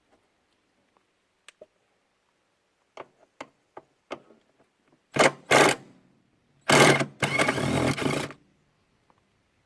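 A power driver's electric motor running in short bursts, twice briefly and then for about a second, as screws are backed out of a washing machine being dismantled, with light clicks of tools and parts before it.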